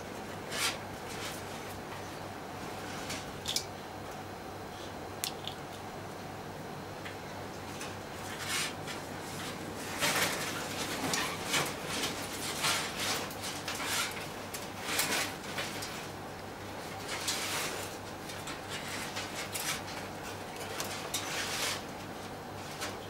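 Scattered light clicks, taps and rustles of hands handling an electronic control panel on a cluttered workbench, busiest in the second half, over a steady low electrical hum.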